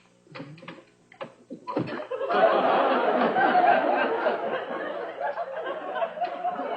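A few light knocks and clicks, then a sitcom studio audience bursting into laughter about two seconds in and laughing on loudly.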